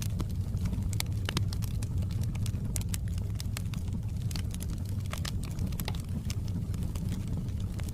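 Wood fire in a fireplace crackling, with irregular sharp pops and snaps over a steady low rumble of the burning fire.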